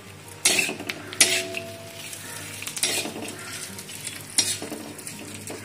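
Dry coconut slices roasting on a hot flat iron tawa, turned by hand: several sharp scraping strokes of the pieces across the griddle over a steady low background.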